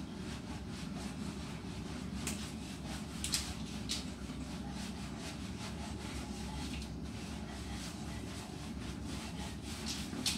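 Hands rubbing and handling a dog's thick coat: a few brief scuffing rubs over a steady low background hum.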